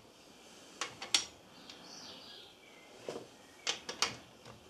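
About six short, sharp metallic clicks in loose pairs as a ratchet-head torque wrench and socket work the connecting-rod cap nuts of a Honda B18 engine, snugging them up in stages.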